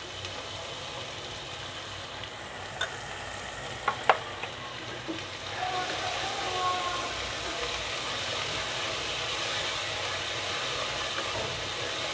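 Spice paste sizzling in oil and ghee in a pot as it is stirred and sautéed, with a few sharp clicks of the spoon against the pot about three and four seconds in. The sizzle grows louder about six seconds in.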